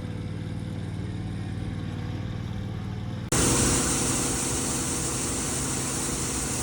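John Deere 4400 combine's diesel engine running steadily. About three seconds in, the sound jumps louder and a strong, high hiss joins the engine hum.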